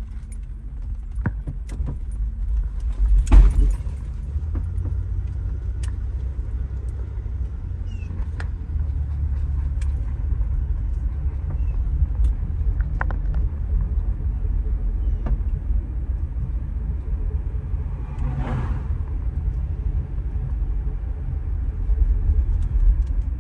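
2003 Buick Regal heard from inside the cabin while driving: a steady low road and engine rumble, with scattered knocks and rattles as the car rides over a rough road on its air suspension. A louder thump comes about three seconds in.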